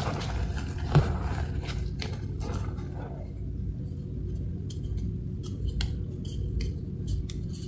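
Hands squeezing and packing powdered gym chalk into a ball in a plastic bowl: crunching and squeaking of compressed chalk, dense for the first few seconds, then sparser sharp crunches as the ball is pressed. A single sharp knock about a second in.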